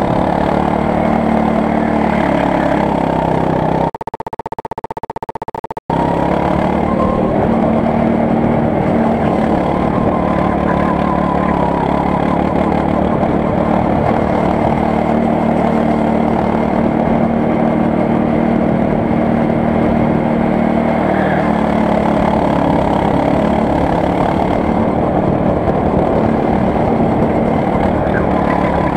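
Go-kart engine running under throttle, heard from a camera mounted on the kart, a steady drone that shifts only slightly in pitch. About four seconds in the sound drops in level and thins out for under two seconds, then cuts back in.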